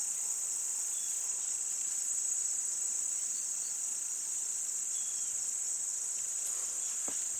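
Steady high-pitched chorus of insects, such as crickets, chirring without a break.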